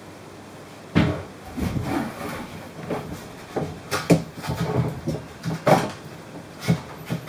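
A hand pressing and working a fish finder transducer down into its foam housing, bedding it in silicone inside a kayak hull: irregular knocks, bumps and scraping handling sounds, starting about a second in, with sharper knocks around the middle and near the end.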